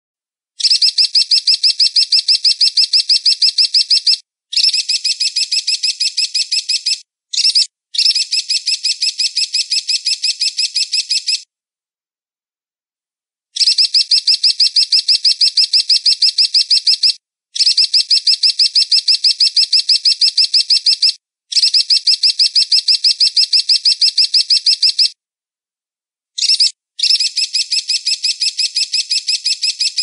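Eagle calling: runs of rapid, high-pitched notes at about five a second, each run lasting three to four seconds, with short silent gaps between them and one longer pause about a third of the way in.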